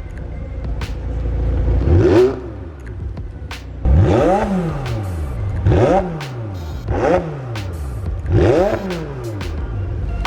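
McLaren 720S twin-turbo V8 on its stock factory exhaust, idling and blipped five times: one rev about 2 seconds in, then four quick revs in the second half, each rising sharply and dropping back to idle.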